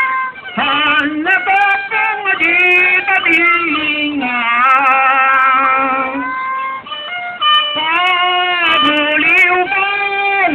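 Street performers' vocal music: a singer sings long, wavering held notes into a microphone, amplified through a small portable speaker, with instrumental accompaniment. The phrases break off briefly about half a second in and again near seven seconds.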